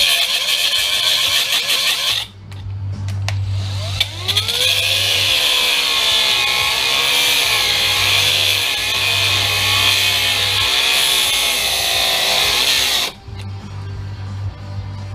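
Angle grinder cutting into the metal of a truck windshield wiper motor assembly: a cut of about two seconds, a short pause, then the grinder winds up again with a rising whine and cuts steadily for about eight seconds before stopping sharply. It throws no sparks, which suggests it is cutting non-ferrous metal such as the cast aluminum housing.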